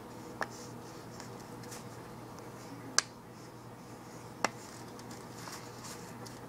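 Three sharp clicks or taps close to the microphone, the loudest in the middle, over faint scratching of a pen writing.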